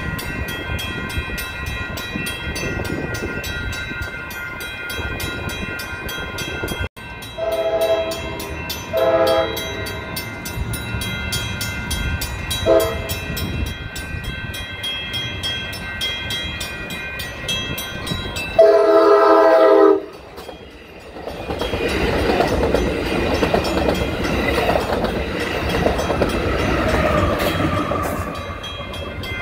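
Passenger train horn sounding a chord: three shorter blasts, then a louder blast of over a second about two-thirds of the way through. Afterwards a passenger train passes close by with a steady rumble and wheel noise.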